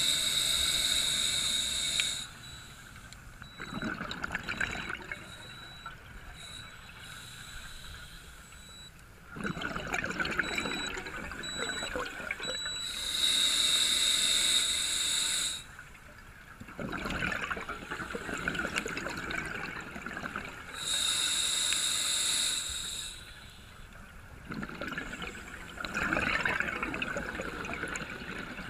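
Scuba diver breathing through a regulator, heard underwater through the camera housing: three loud gushes of exhaled bubbles, each about two and a half seconds long, with quieter regulator breaths between them.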